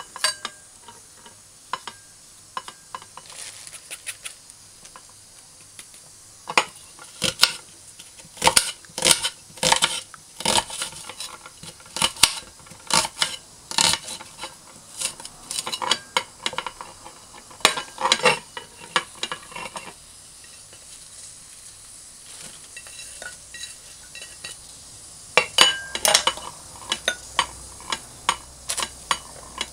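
Kitchen clatter during food prep: a knife and hands clicking and tapping against ceramic plates and a metal tray in irregular runs of sharp clicks, with a quieter stretch about two-thirds of the way through.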